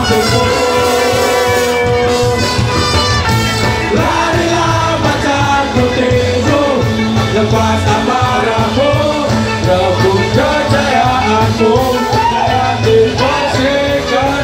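Live ska band playing loudly, with electric guitars, a steady drum beat and voices singing a melody over it.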